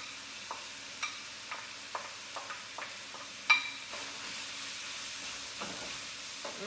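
Food sizzling in a hot pan while frozen vegetables are added from a bowl, with a utensil knocking and clinking against the bowl about a dozen times; one sharp ringing clink about three and a half seconds in is the loudest.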